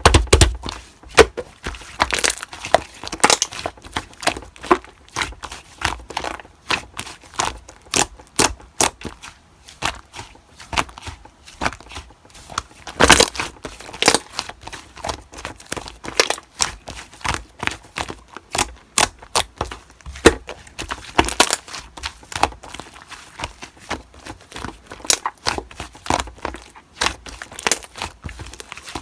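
Slime being squeezed and pressed by hand, making a fast, irregular run of sticky clicks and pops with a few louder snaps.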